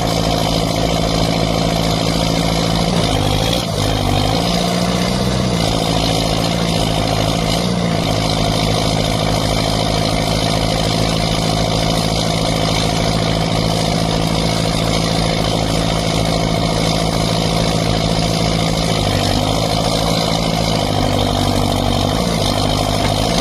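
Heavy machine's diesel engine running steadily, its pitch sagging and recovering about three seconds in and again near the end.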